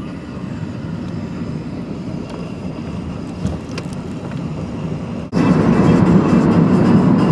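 Steady road and engine rumble heard from inside a moving taxi on a highway; about five seconds in it jumps suddenly louder.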